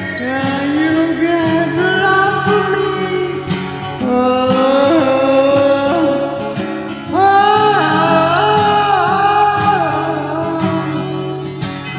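A voice singing a karaoke cover over an acoustic guitar backing track, the sung notes held and bending with vibrato.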